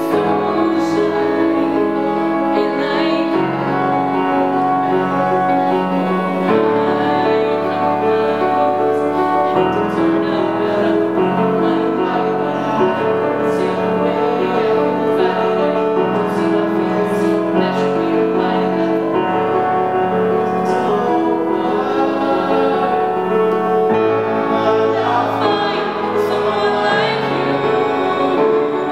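Grand piano accompanying a young woman singing a slow ballad.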